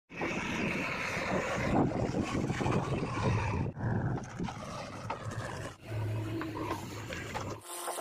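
Diesel engines of a JCB 3DX backhoe loader and tractors running, with a heavy rumble. The sound changes abruptly three times as one machine gives way to another.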